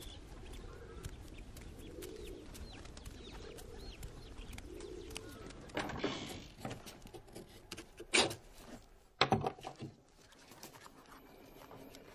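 Doves cooing, a low coo repeated about once a second, with small birds chirping over it. In the second half the birds give way to a few sharp rustling knocks, the loudest two about 8 and 9 seconds in.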